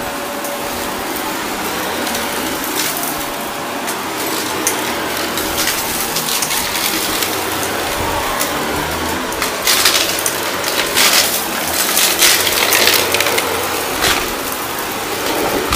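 Shark Navigator upright vacuum running steadily over a shag rug, crackling as it sucks up crunchy debris, with louder bursts of crackling about ten to thirteen seconds in.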